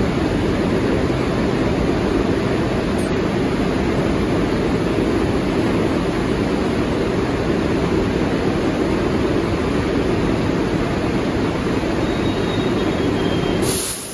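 Steady, loud rumble of New York City IRT subway trains in the station, with a brief sharp sound near the end after which the noise drops.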